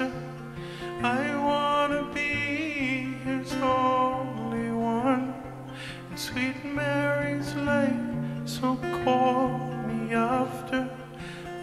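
Live performance of a man singing held, gliding notes into a microphone while playing a hollow-body electric guitar.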